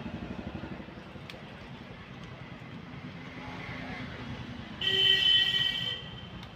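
Road traffic with a vehicle engine running, and a vehicle horn honking once for about a second near the end.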